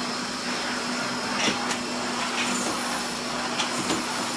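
1961 Hoover Constellation canister vacuum cleaner running steadily, floating on its own air: a constant motor hum over rushing air. A few light clicks or knocks come through about a second and a half in and again near the end.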